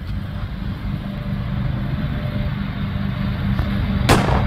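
Lawn mower engine running steadily at a distance, under a low rumble of wind on the microphone. A brief sharp crackle comes near the end.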